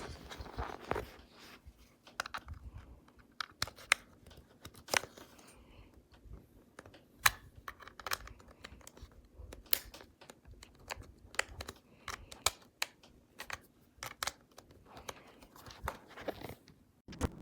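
Handling noise: irregular sharp clicks, taps and brief rustling as small plastic objects and packaging are moved about, over a faint steady hum.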